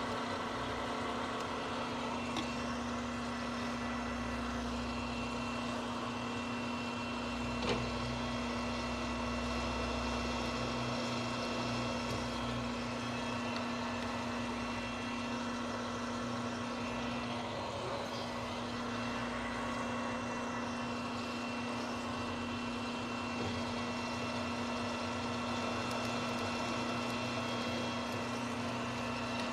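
Manual lathe running under power during single-point thread cutting: a steady machine hum with one strong low tone and fainter whine above it. A single sharp click sounds about 8 seconds in.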